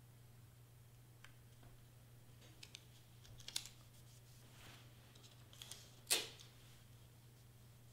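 Faint rustling and sliding of cardstock pieces being pressed and lined up by hand on a crafting board, with a few small clicks and one sharper click about six seconds in. A steady low hum runs underneath.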